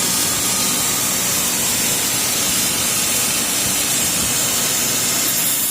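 Steady, loud hissing noise with no breaks, strongest in the high range, over a faint low hum.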